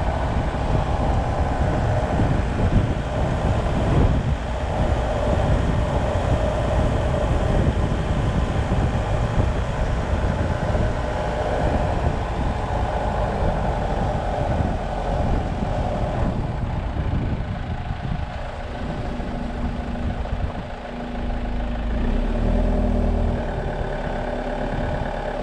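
Motorcycle running along a road, its engine under a constant rush of wind noise. About three-quarters of the way through the wind noise eases and a steadier, lower engine hum takes over as it slows.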